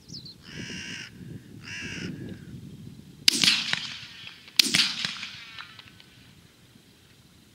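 Two harsh crow caws, then two shots from a Browning A5 12-gauge semi-automatic shotgun about a second and a half apart, each cracking sharply and ringing out as it fades.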